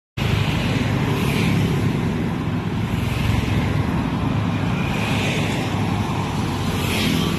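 Steady road and traffic noise: a dense low rumble of vehicles moving, with a few brief swells as traffic passes.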